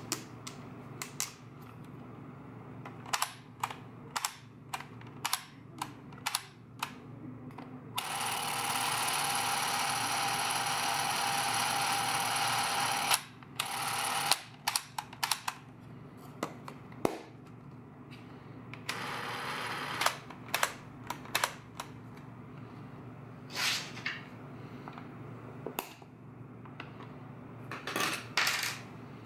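Agfa Family Super 8 film camera being handled: a string of sharp plastic clicks and knocks from its doors, latches and switches. About a third of the way in its film-drive motor runs steadily for about five seconds, and it runs again more quietly for a couple of seconds about two-thirds in, a sign the camera's drive is working.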